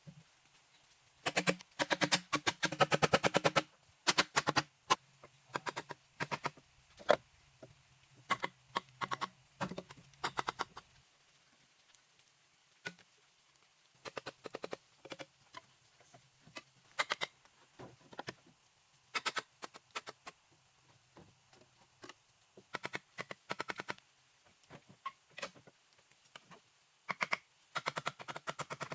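A fast, irregular run of sharp knocks and clicks in clusters, densest near the start, over a faint low hum that stops about a third of the way in.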